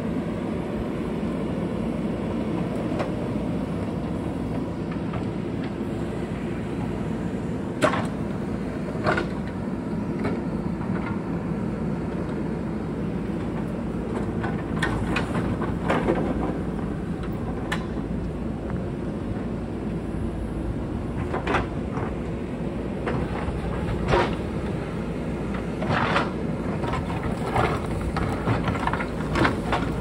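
JCB backhoe loader's diesel engine running steadily under load as it digs, with sharp knocks of the bucket striking boulders and rock scattered throughout, several close together near the end.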